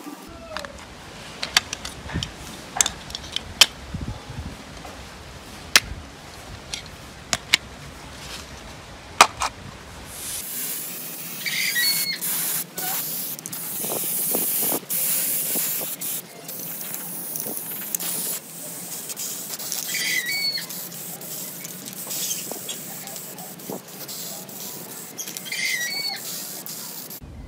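Plastic camera housing parts clicking and tapping as they are handled, then an aerosol spray can hissing in long bursts over the laid-out parts. A bird chirps briefly three times.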